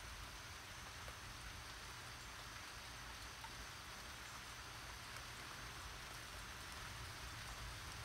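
Rain falling steadily and faintly, an even hiss with a few separate drops ticking now and then.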